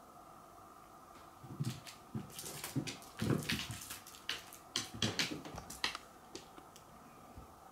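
A cat pouncing on and wrestling a plush kick toy on a wooden floor: a quick flurry of thumps, scuffs and scratches that starts about a second and a half in and stops about six seconds in.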